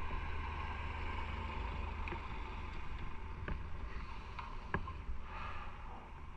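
Motorcycle on the move: steady wind and road noise rushing over the microphone, with a few small clicks in the middle.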